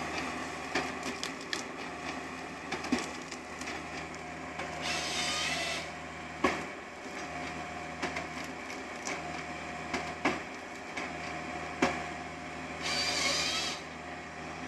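Bobcat 5-ton excavator working as a timber harvester: its engine runs steadily while the harvester head cracks and snaps wood and branches again and again. The head's saw makes two cuts of about a second each, around five and thirteen seconds in.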